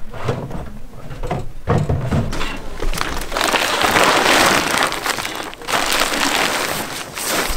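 Large bundles wrapped in plastic sheeting rustling and scraping as they are heaved onto a pickup truck's bed. A few dull thumps come in the first couple of seconds, and a dense rustle builds from about three seconds in.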